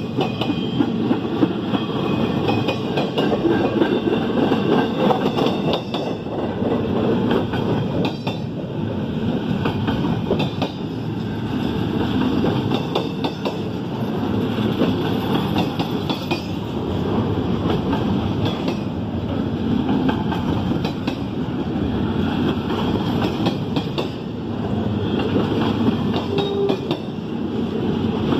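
CSX double-stack intermodal train of container-laden well cars rolling past: a steady rumble of steel wheels on rail, with irregular wheel clicks.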